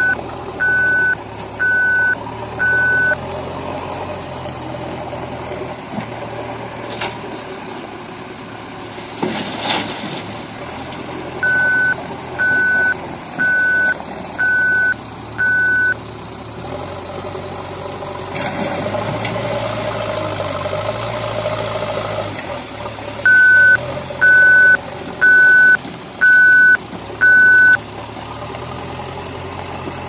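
Liebherr PR 754 crawler dozer's diesel engine running steadily while its reversing alarm sounds three sets of five evenly spaced beeps, near the start, in the middle and near the end. A single sharp knock comes a third of the way in, and the engine works harder for a few seconds after the middle.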